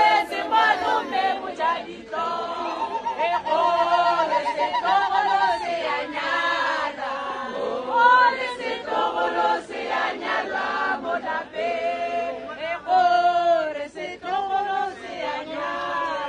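A group of voices singing together without instruments, in sustained, wavering sung lines.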